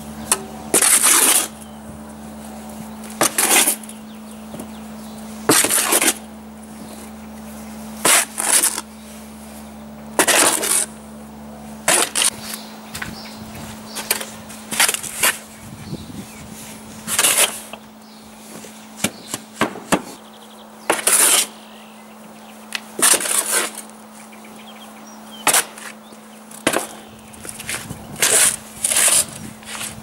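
A steel spade scraping and digging through a sand-and-cement mix in a metal wheelbarrow, one shovelful turned over about every two seconds, with the blade grating against the wheelbarrow's steel pan.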